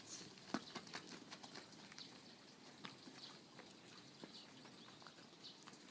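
Near silence, with faint, scattered clicks and taps.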